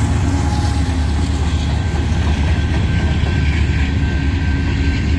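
Union Pacific manifest freight train rolling past: a steady low rumble of steel wheels on the rails as the trailing locomotive goes by and the freight cars follow.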